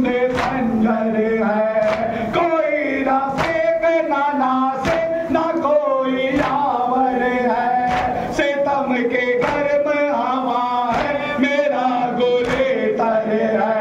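Men's voices chanting an Urdu noha (Shia lament) together, a lead reciter on a microphone with the group singing along. Sharp beats about every 0.8 s keep time: hands striking chests in matam.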